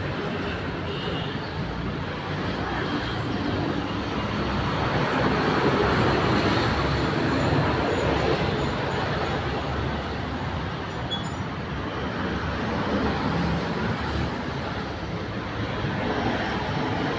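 Steady traffic noise from a busy highway, swelling louder for a few seconds around the middle as vehicles pass.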